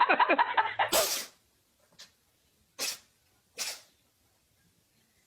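A pet sneezing: one sharp sneeze about a second in, then three shorter, quieter sneezes, each about a second apart.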